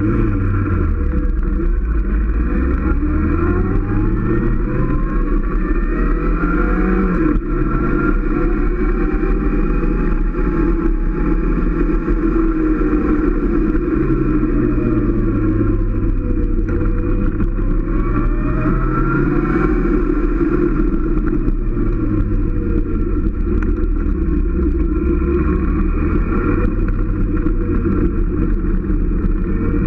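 Motorcycle engine under way, its pitch climbing and dropping back several times as the throttle is opened and rolled off through a series of bends, over a steady rush of wind and road noise.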